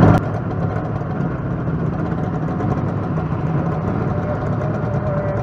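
Motorcycle engines idling steadily, a low even drone.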